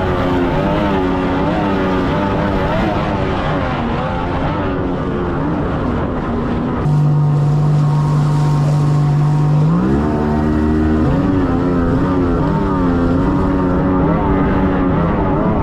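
Thundercat race boat's outboard motor running hard, its pitch wavering up and down with the revs. About seven seconds in it holds one steady note for some three seconds, then the revs climb and the wavering resumes.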